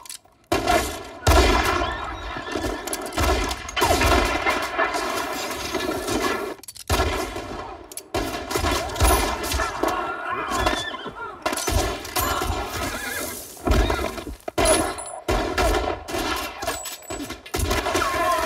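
Shootout between mounted riders and shooters in buildings: many rifle and revolver shots in quick succession, with horses whinnying and stamping among them.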